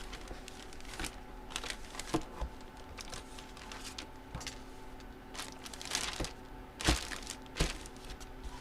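Packaging crinkling and rustling in irregular short bursts as it is handled and opened, with a few sharper clicks and crackles.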